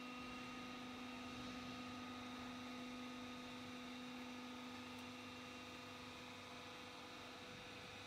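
Vertical paper scrap baler's hydraulic power unit humming faintly and steadily, a low hum with fainter higher tones. The low hum fades out near the end.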